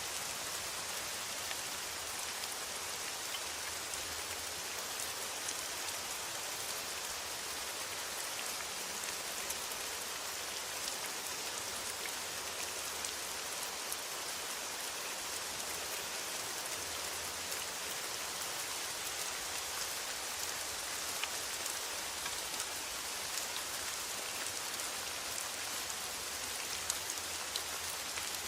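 Steady rain falling on a metal roof: an even hiss with scattered drop ticks.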